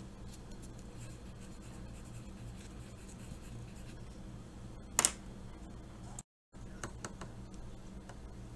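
Pencil writing on watercolour paper: faint scratching over a steady low hum, with one sharp click about five seconds in. The sound cuts out briefly a second later, then the hum and a few small clicks return.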